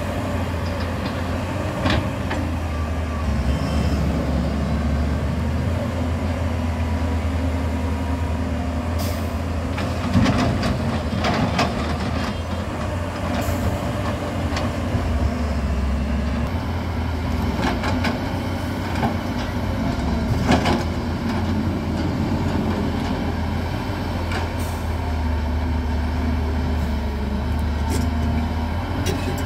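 Heavy diesel engines of a JCB tracked excavator and dump trucks running, the low rumble swelling and easing. Sharp clanks and thuds come every few seconds as the bucket loads earth and rock into a truck's steel bed.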